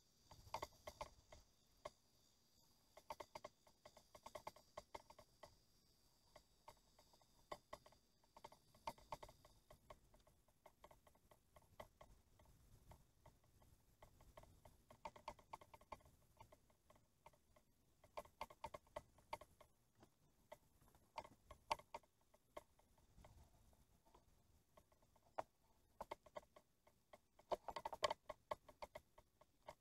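Near silence broken by short runs of quick clicking, as a fishing reel is cranked in bursts while working a lure, loudest near the end.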